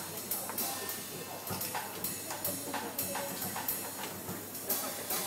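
A live band playing, with a drum kit most prominent: cymbal and drum strikes at an uneven pace, about two a second.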